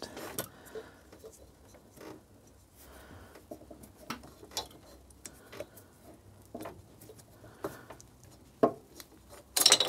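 Scattered light metal clicks and taps as the cylinder barrel of a Suzuki K10P engine is eased and twisted off its piston. Near the end comes a sharper metallic clatter of a loose washer dropping, which at first sounded like a piston ring.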